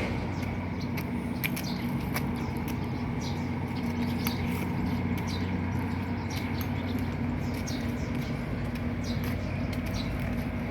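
Steady low engine hum, with birds chirping in short scattered notes throughout.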